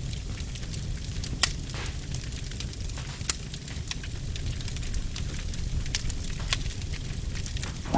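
Fire burning: a steady low rumble with scattered sharp crackles and pops.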